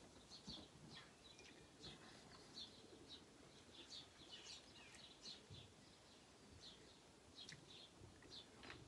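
Faint chirping of small birds: short high chirps, several a second, over a low background hum.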